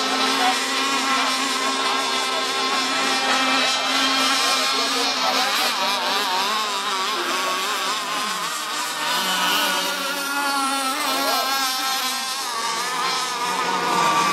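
Radio-controlled racing boats running at speed: a high, continuous motor whine from more than one boat, its pitch wavering up and down throughout.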